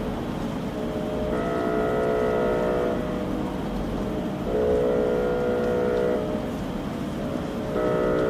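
Multi-tone air horn sounding a chord in repeated blasts of about a second and a half, roughly every three seconds, over a steady hiss; typical of an attention air horn signal.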